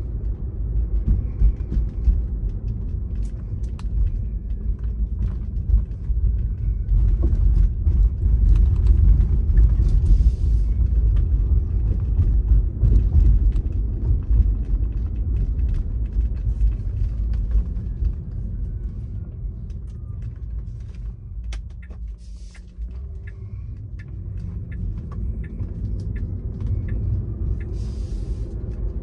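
A car driving, heard from inside the cabin: a steady low rumble of road and engine noise with scattered faint ticks, easing off for a few seconds about two-thirds of the way through before building again.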